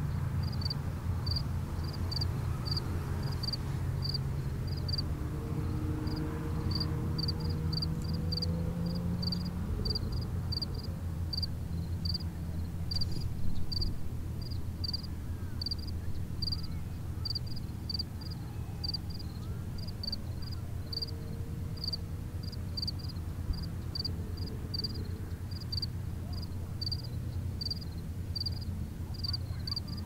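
Shoreline evening ambience: a steady low rumble with a short high chirp repeating about twice a second, and a faint hum that rises in pitch about five to nine seconds in and again briefly near the two-thirds mark.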